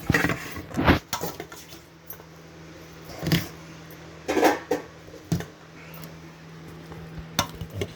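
A ladle scraping and clinking against the pot every second or so while cooked rice is mixed with tamarind juice to make tamarind rice (pulihora), with a faint steady hum underneath.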